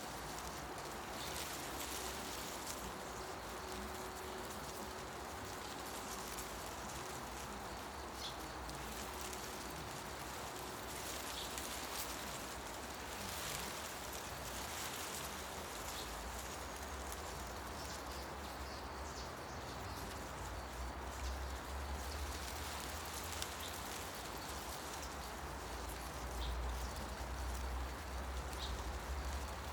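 Forest ambience: wind rustling through tree leaves in a steady hiss, with a few short, faint bird chirps. A low rumble swells in the second half.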